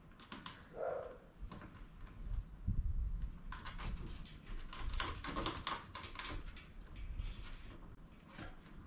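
Light clicking and rustling of hands fitting a wire and its terminal onto a holding-tank level sensor, with a few low bumps of handling; the clicks come thickest in the middle.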